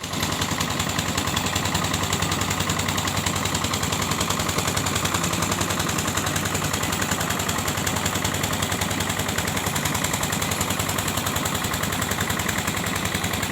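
Loud DJ sound system playing a very fast, continuous rapid-fire beat with no breaks.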